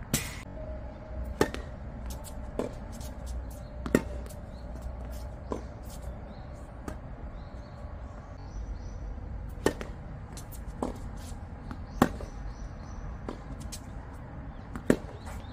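Tennis rally: sharp pops of rackets hitting the ball, roughly every second and a half, louder from the near player and fainter from the far end of the court, over a low rumble of wind.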